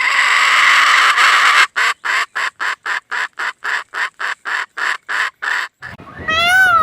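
Farm bird calling loudly: one long harsh squawk, then a fast run of short harsh calls, about four a second, and a short call that rises and falls near the end.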